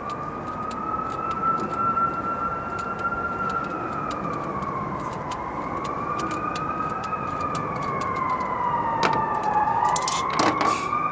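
A siren wailing slowly up and down in the background, over light, irregular clicks of a small ratchet wrench loosening the nut on a pool light's spring clamp.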